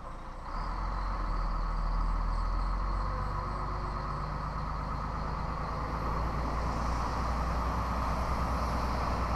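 Scania 113 truck's turbocharged straight-six diesel running under load, heard from the cab, getting louder about half a second in and then holding steady. A steady hiss rides over it, which the driver takes for an intercooler hose that has blown off or been punctured.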